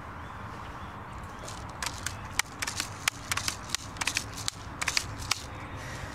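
Handling noise: a run of irregular sharp clicks and crackles close to the microphone, starting about two seconds in and stopping near the end, over a steady outdoor hiss.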